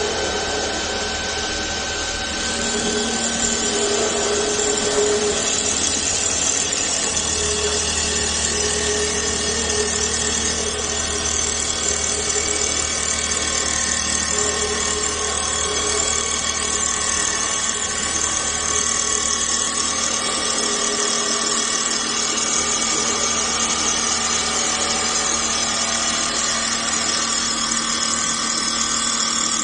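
Multihead CNC wood lathe running while machining a wooden workpiece: a steady mechanical whine of several held tones over a rough hiss.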